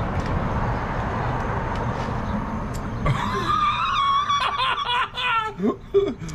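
Steady background rumble, then about halfway through a person breaks into high-pitched squealing and laughter in reaction to the burn of a hot pepper just bitten.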